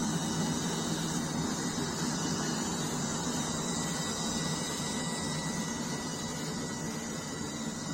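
Metal-melting furnace running steadily, its burner and air blower giving an even rushing roar with a faint thin whine above it.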